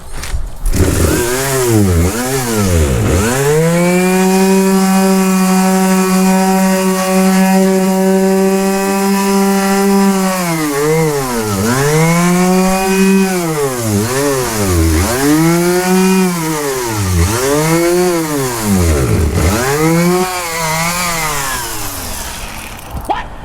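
Power sander running on a fibreglass boat hull with 220-grit paper. It starts about half a second in and hums steadily, then swings down and back up in pitch over and over in the second half as it is worked over the surface. It fades near the end.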